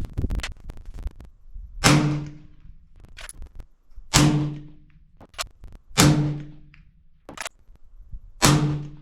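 Four suppressed shots from a 6.5 Creedmoor Sig Sauer Cross rifle fitted with a short .224 suppressor, spaced about two seconds apart, each with a short ringing tail. Lighter clicks fall between the shots.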